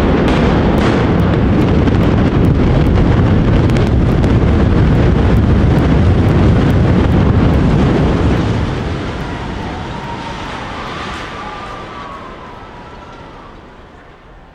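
Demolition implosion of a high-rise building: a rapid string of explosive charges cracking over a deep, loud rumble as the tower collapses. The rumble dies away slowly over the last several seconds.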